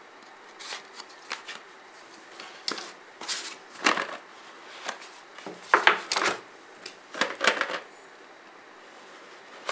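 Cardboard smartphone boxes being handled and their seal stickers broken open: a string of short, scratchy rasps and rustles of card and paper, several seconds apart.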